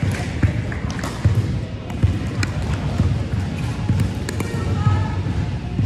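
Pickleball paddles striking a hard plastic pickleball, a string of sharp pops at irregular intervals from the rally and nearby courts, in a large indoor hall.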